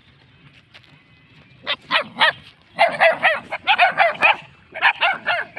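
Puppies yipping and barking while they play-fight: short, high calls in three quick bursts, starting about a second and a half in, the middle burst the longest and most rapid.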